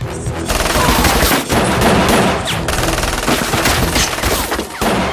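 Sustained automatic gunfire in a movie shootout: rapid, dense volleys of shots overlapping one another, with a few brief whizzing glides among them.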